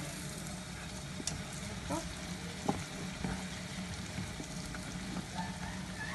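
Sfenj (a Moroccan yeast doughnut) deep-frying in a pot of hot oil, sizzling steadily, with a few light clicks as a metal spoon turns it over in the oil.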